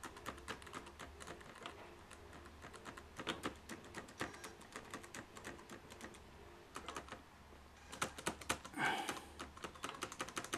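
Keys tapped on a Samsung laptop's built-in keyboard, typing a password in irregular clicks, with a lull in the middle and a quick flurry near the end. The keyboard is liquid-damaged and not registering keys reliably.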